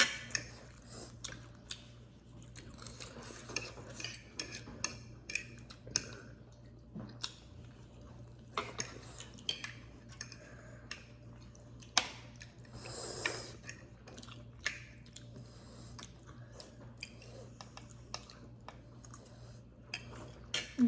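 Cutlery clinking and scraping against bowls and plates in irregular sharp clicks, with chewing while people eat spicy noodles. A steady low hum runs underneath.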